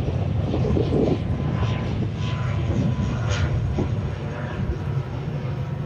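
Drone of a departing airplane's engines after it has taken off and passed overhead, slowly fading, over a steady low rumble.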